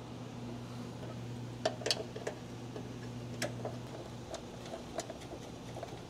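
Light, irregular metallic clicks and ticks as the fender bolts on a car's front fender are started by hand, over a steady low hum.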